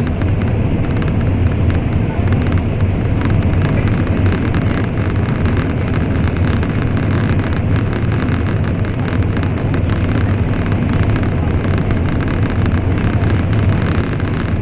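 Steady rumble and rush of an N700 series Shinkansen running at speed, heard inside the passenger car.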